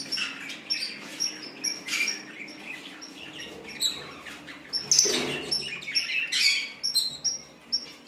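A flock of budgerigars chirping and chattering: many short, high chirps repeating throughout, with a louder burst of calling about five seconds in.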